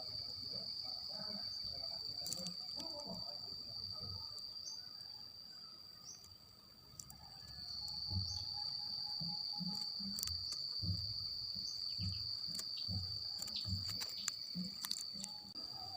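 An insect, cricket-like, trilling continuously on one steady high pitch, with scattered low thumps and a few faint clicks.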